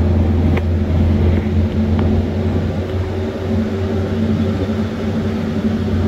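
Tuk-tuk engine running steadily as it drives along the road, a low steady hum with road noise.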